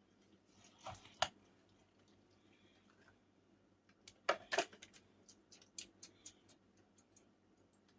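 Light clicks and taps of suet mix being packed into plastic suet cake holders: a couple of soft knocks about a second in, two sharper clicks a little past the middle, then a run of small ticks.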